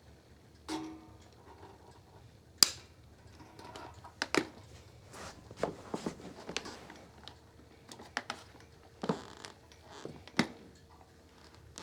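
Handling noise: irregular clicks, taps and thunks of objects being picked up and moved, the loudest a sharp click about two and a half seconds in.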